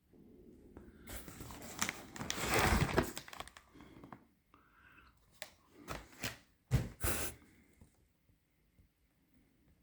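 Heavy-duty shipping packing material being pulled and torn open: a rough tearing, crinkling rustle lasting about two and a half seconds, then several short, sharp handling noises.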